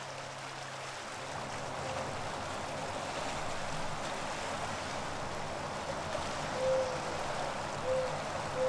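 Rushing, choppy water, a steady wash of noise. Three short tones stand out briefly above it near the end.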